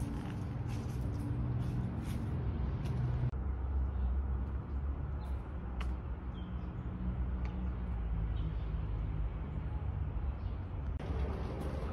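Outdoor ambience: a steady low rumble with a few faint, short high chirps and ticks; the background changes character about three seconds in.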